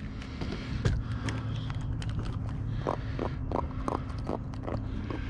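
Small jack crevalle being held and unhooked by hand, with a run of short, sharp sounds about three a second in the second half, over a steady low hum.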